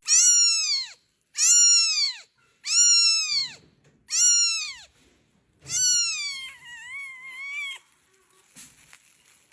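A cat meowing five times in a row, each meow rising and falling in pitch; the fifth is longer and wavers.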